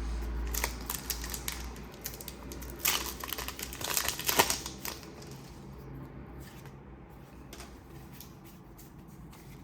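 Foil booster pack wrapper crinkling and being torn open: dense crackling, busiest from about three to four and a half seconds in, then softer scattered ticks as the pack and cards are handled.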